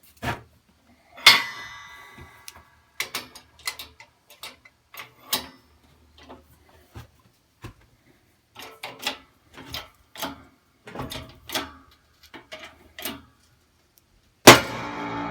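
Hydraulic shop press being pumped against a seized steering shaft: irregular sharp clicks about two a second as the load builds, and a louder crack with a short ring about a second in. Near the end a loud bang with a long metallic ring as the shaft suddenly moves in the steering wheel hub under pressure.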